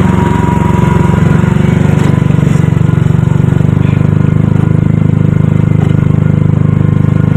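Small auto-rickshaw engine running steadily with a fast, even chug, heard loud from inside the rickshaw's cabin as it drives along.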